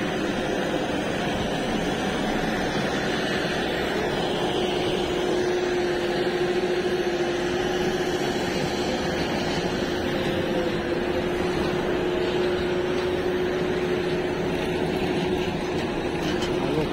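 JCB 3DX backhoe loader's diesel engine running steadily as it digs and pushes soil, with a steady humming tone through most of the stretch.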